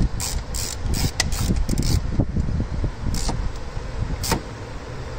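Hand ratchet clicking in quick short runs as it is swung back and forth to snug down intake manifold spacer bolts with light effort. The strokes come about four or five a second for the first two seconds, then only twice more.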